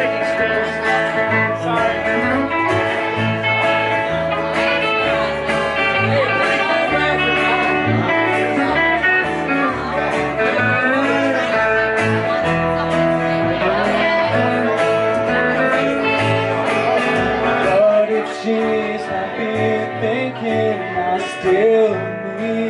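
Live band playing country-style music: strummed acoustic guitar over a moving bass line, with singing.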